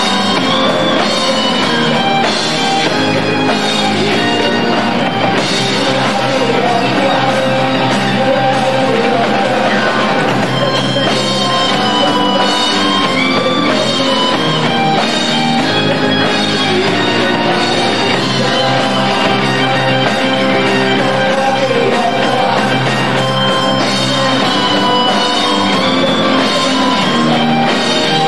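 Rock band playing live: drum kit, electric guitar, bass and keyboards together in a steady, full arrangement.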